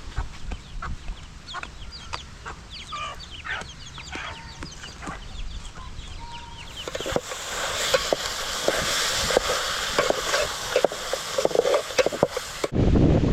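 Chickens clucking, with scattered sharp clicks. About seven seconds in, a louder steady hiss with crackling takes over, and it cuts off abruptly near the end.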